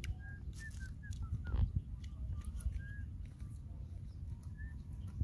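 Birds giving short, high chirps every so often, over a low rumble of wind on the microphone.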